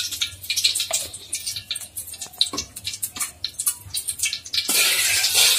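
Oil poured into a hot iron kadai, crackling and spitting in scattered sharp ticks. Near the end a steady sizzle starts suddenly as the hot oil spreads across the pan.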